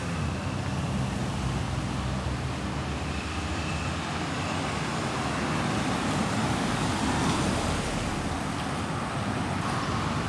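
Road traffic noise: motor vehicles running along a city street, a steady noise that grows a little louder about six to eight seconds in.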